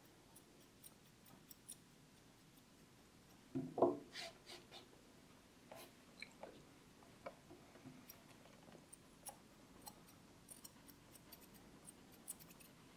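Grooming scissors snipping a small dog's leg hair: a scatter of faint, quick snips, with one louder, duller knock about four seconds in.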